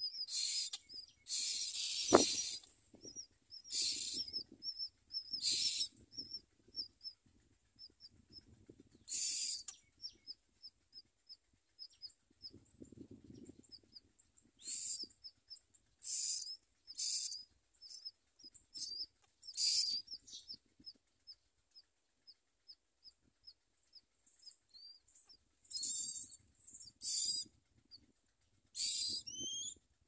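Common myna nestlings begging: repeated short, harsh, high calls with runs of fast high chirps between them. A single sharp click about two seconds in.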